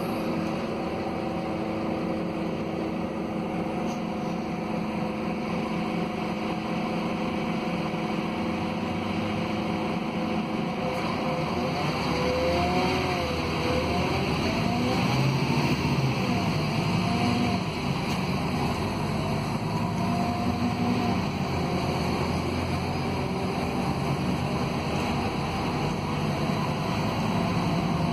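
Scania K280UB city bus's DC09 five-cylinder diesel pulling uphill under load, heard from inside the passenger cabin. Between about twelve and eighteen seconds in, the engine note rises and falls several times.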